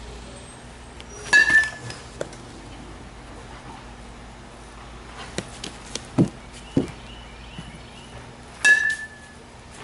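A youth metal baseball bat striking pitched balls twice, each hit a sharp ping with a brief ringing tone, about seven seconds apart. Two duller thuds come between them.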